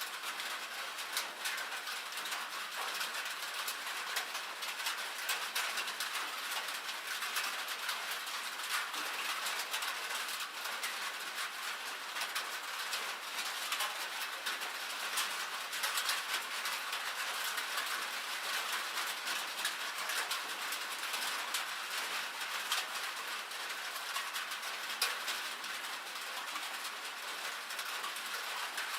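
Rain and hail falling on a metal roof: a dense, steady patter crowded with sharp ticks of the stones striking the sheet metal.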